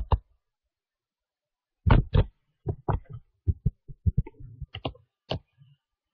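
Silence for about a second and a half, then a run of irregularly spaced short thumps and knocks, some a little sharper than others.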